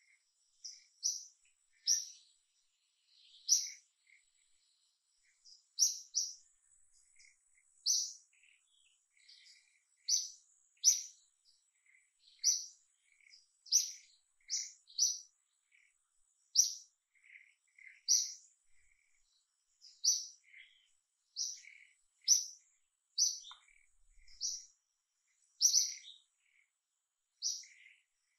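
A bird calling with short, high chirps, often in pairs, about once a second, over a faint steady high-pitched whine.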